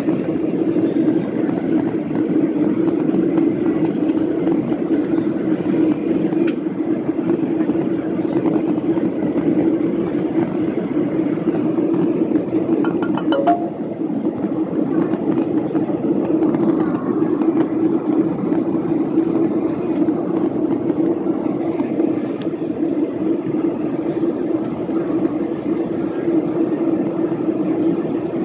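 Steady cabin noise of a Boeing 737-800 in climb, heard from a window seat by the wing: the constant drone of its CFM56-7B turbofans and the rush of air past the fuselage. A quick run of clicks about halfway through.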